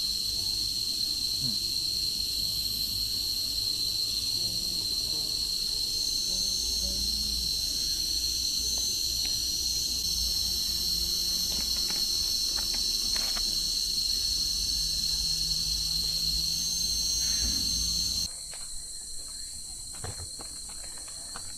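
A loud, steady, shrill insect chorus holding one high whine, which cuts off abruptly about eighteen seconds in. A few faint knocks follow in the quieter background.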